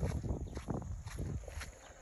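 Footsteps crunching on a dirt road, with irregular steps growing fainter toward the end.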